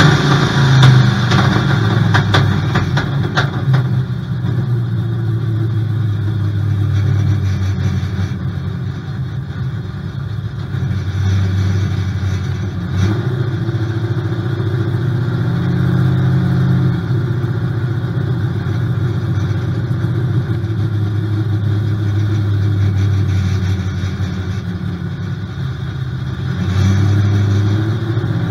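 Big-block V8 of a Cutlass drag car heard from inside the cabin, loudest in the first few seconds, then running at low speed as the car comes off the track, with the revs rising and falling a little a few times.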